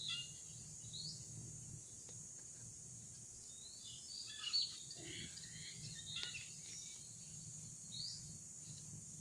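Birds chirping in short scattered calls, a cluster about halfway through and a few more near the end, over a steady high-pitched drone of insects.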